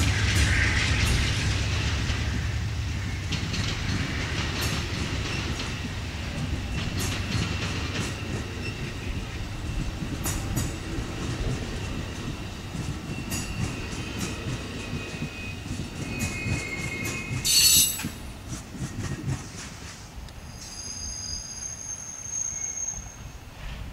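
Bilevel Amtrak Superliner passenger cars rolling past, wheels clicking over the rail joints, the rumble fading as the train moves away. There is a loud sharp bang about 17 seconds in, and high wheel squeal near the end as the last car passes.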